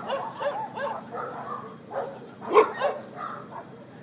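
Dog barking and yelping in short, repeated calls, the loudest about two and a half seconds in, as it is chased with a catch rope.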